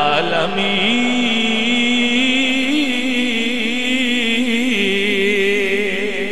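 A man's voice singing a devotional kalam (naat) into a microphone, holding a long drawn-out note with a wavering vibrato. The note steps up slightly about a second in and drops lower near the end.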